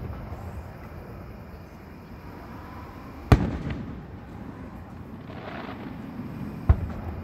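Aerial firework shells bursting: three sharp bangs about three seconds apart, the middle one the loudest and trailing off in a rumbling echo.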